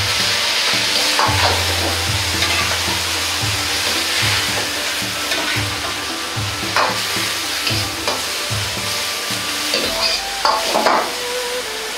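Cabbage sizzling and being stir-fried in an iron wok, with a ladle scraping and knocking against the metal now and then. There is a quick run of ladle knocks about ten seconds in.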